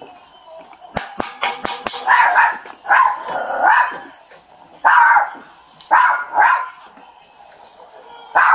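A quick series of about five knocks about a second in, then a dog barking in repeated bouts behind the closed front door.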